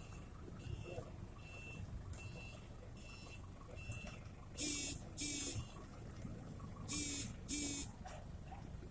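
Electronic beeper, likely on an industrial laundry machine's control panel. It gives five short high beeps about 0.8 s apart, then four louder buzzing beeps in two pairs over a low steady machine hum.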